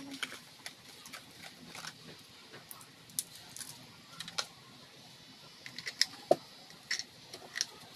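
Small plastic clicks and taps as batteries are handled and fitted into a plastic remote-controlled toy snake, with a run of louder, sharper clicks about six seconds in.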